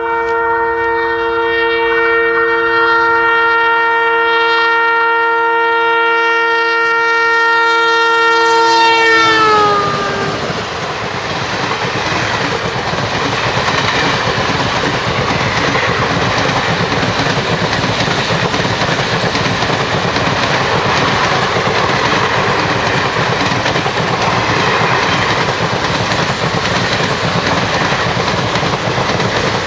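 Twin WDM-2 diesel locomotives sounding their horn in one long, steady multi-tone blast for about nine seconds; the pitch drops as they pass and the horn stops. Then the express train's coaches go by, a steady noise of wheels running on the rails.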